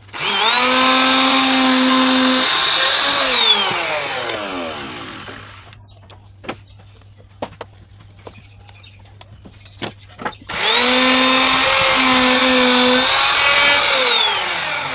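An electric power tool cutting wood, run twice: each time the motor whines up to speed, dips briefly in pitch under load, then is switched off and winds down with a falling whine. Light knocks and clicks come between the two runs.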